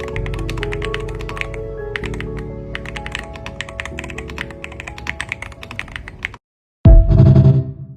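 Rapid typing on an Aula Hero 84HE Hall-effect keyboard, a quick stream of key clicks over background music. Both stop about six seconds in, and a short, loud burst with a low tone follows and dies away near the end.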